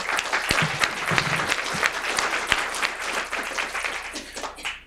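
Audience applauding at the end of a talk, a dense patter of many hands clapping that dies away near the end.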